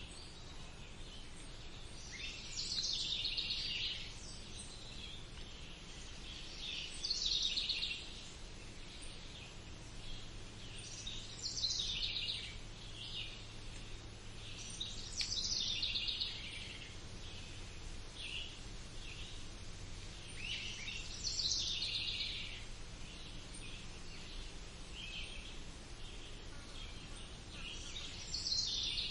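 A songbird singing, repeating a short phrase that falls in pitch, about every four to five seconds, over a steady low background rumble.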